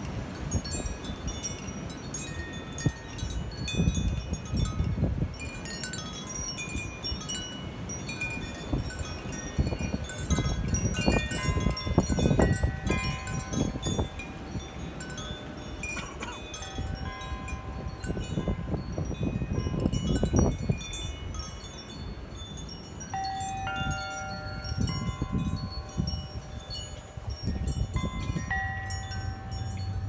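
A wind chime ringing irregularly in strong storm gusts, at several pitches, some notes held for a few seconds. Gusts of wind buffet the microphone in repeated surges.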